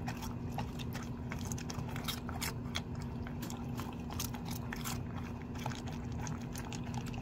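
A Dalmatian eating dry kibble from a bowl: a fast, irregular run of crunches and clicks as it chews, over a steady low hum.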